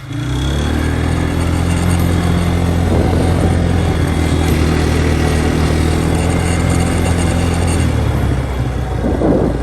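ATV engine running steadily under throttle while driving, with its pitch dropping near the end as the throttle eases off.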